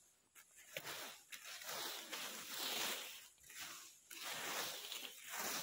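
Fan rakes scraping through a thick layer of dry fallen rubber-tree leaves, several people raking at once, in repeated rustling strokes about one or two a second.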